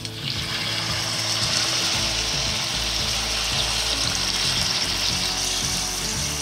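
Diced chicken frying and sizzling in a hot pan as it browns, a steady dense hiss that starts abruptly at the beginning. Background music plays underneath.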